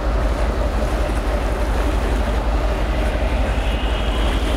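Boat engine running, a steady low throbbing rumble with a wash of noise over it.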